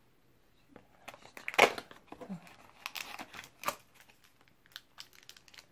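Small foil-wrapped treat sachet crinkling as it is pulled out of a cardboard advent-calendar window, with some tearing of the cardboard: a run of irregular crackles and clicks, loudest about a second and a half in.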